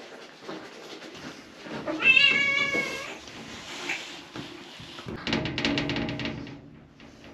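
Pet cat meowing in protest while being given a shower: a loud, long meow about two seconds in, a shorter one near four seconds, and a harsher, drawn-out cry around five to six seconds that then fades.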